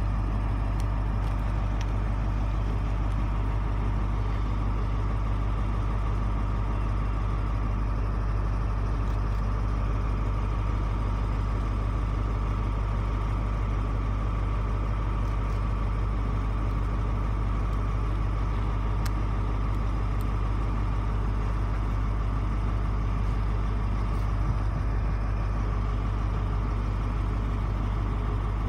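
CrossCountry HST Class 43 power car's MTU diesel engine idling steadily: a constant deep drone with an even hum above it.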